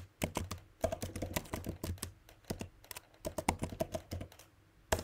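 Typing on a computer keyboard: quick runs of keystroke clicks as a phrase is typed out, stopping shortly before the end.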